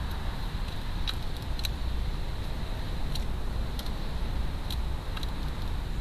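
Steady low rumble with a scattering of short, sharp clicks, fitting a wood pigeon pecking at seed on a feeder tray.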